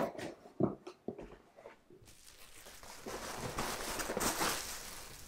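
Cardboard box being opened by hand: a few light taps and scrapes of the flaps, then a rustle that grows louder as the contents are handled.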